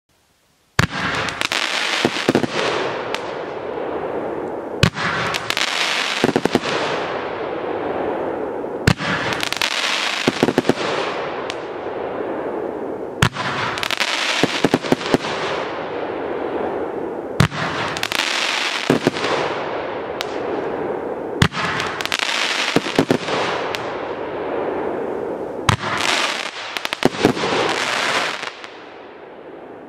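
A 35-shot consumer firework cake firing. Sharp launch reports ring out over a continuous crackle from the bursting stars, swelling in waves about every four seconds. It starts about a second in and dies away near the end.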